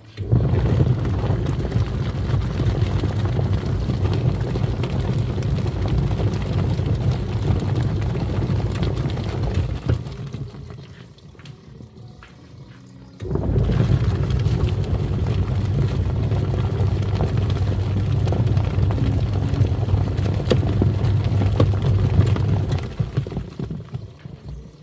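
Twin-tub washing machine's wash tub churning water and foam, its motor humming under the sloshing. It runs for about ten seconds, stops for about three, starts again abruptly and winds down near the end.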